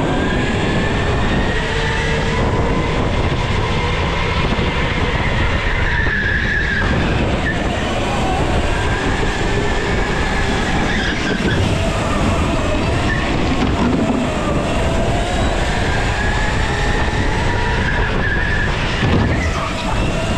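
Go-karts racing on an indoor concrete track, heard from on board: their motors whine, the pitch rising and falling with speed through the corners, with several karts running close together.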